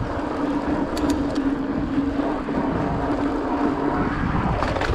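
29er hardtail mountain bike rolling at steady speed: a steady tyre hum with a rushing noise, and a couple of brief clicks about a second in.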